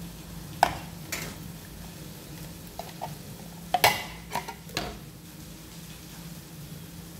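Tin can of corn being opened with a lever-style can opener: scattered sharp metallic clicks and knocks as the blade bites and levers around the rim, with the loudest cluster about four seconds in. A steady low hum runs underneath.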